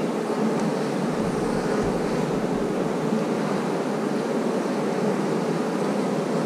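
Steady hum of a honeybee colony in an opened nucleus hive as a frame of bees is lifted out. The colony is calm.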